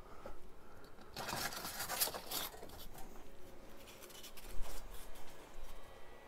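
Rustling and scraping of a piece of polystyrene foam being picked up and handled, loudest for a second or so starting about a second in, followed by lighter handling noises.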